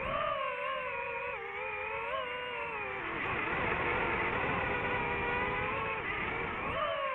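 DJI FPV drone's motors and propellers whining, the pitch wavering up and down with the throttle. The pitch drops about three seconds in and climbs again near the end.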